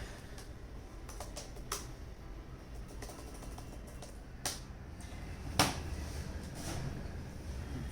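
A few scattered sharp clicks over a low, steady hum, the loudest click about five and a half seconds in.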